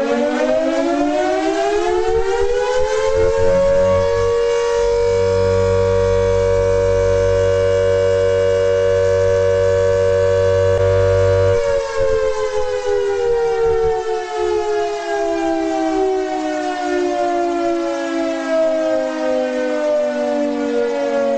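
World War II air-raid siren winding up in pitch for about four seconds, holding a steady wail for about eight seconds, then winding slowly down.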